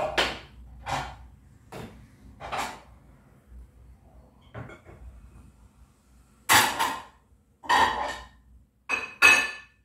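Plates and a wooden dish rack being set on a wall shelf: a series of separate knocks and clatters, the loudest four coming near the end.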